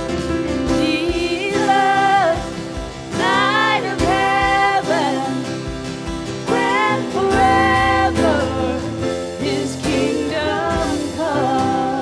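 Live worship band playing a song: sung vocal lines with vibrato over drums, acoustic guitar and piano.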